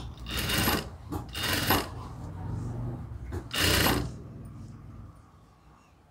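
Jack industrial sewing machine stitching in three short runs as fabric is fed under the presser foot, sewing small gathers into a fabric layer; it stops about four seconds in.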